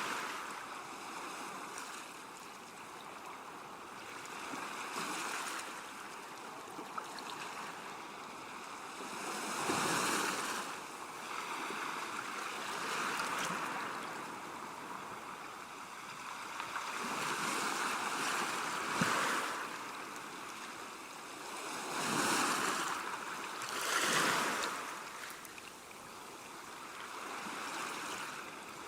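Waves washing onto a beach, a steady rushing that swells and ebbs every few seconds, with several stronger surges.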